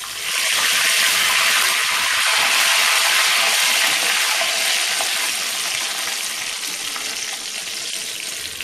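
Fresh curry leaves sizzling hard in hot frying oil with fried jackfruit seeds, stirred with a slotted spoon. The sizzle is loudest a few seconds in, then slowly dies down as the leaves' moisture cooks off.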